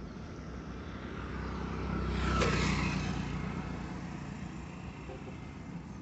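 A road vehicle passing close by: its sound swells to a peak about two and a half seconds in, then fades away.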